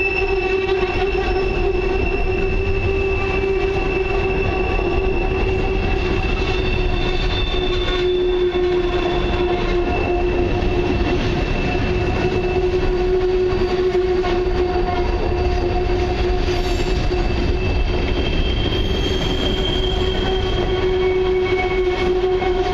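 Empty steel coal hopper cars rolling past close by over a low, steady rumble. Their wheels squeal steadily against the rail on the curve, with several high squealing tones held throughout.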